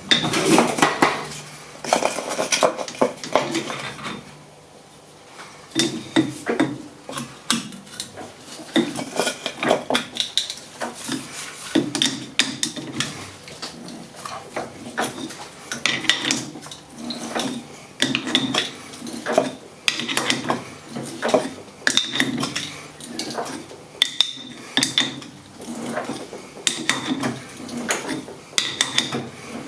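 Irregular metallic clinks and clicks from a tap and tap wrench being turned by hand to cut a thread in a steel part held in a metal lathe, with a short lull about four seconds in.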